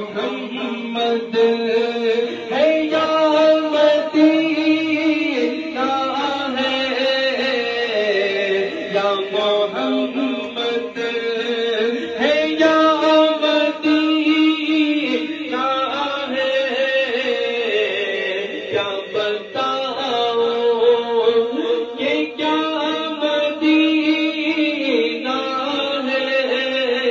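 Unaccompanied naat sung by men's voices through a microphone and loudspeaker, a slow chant-like melody with long held notes.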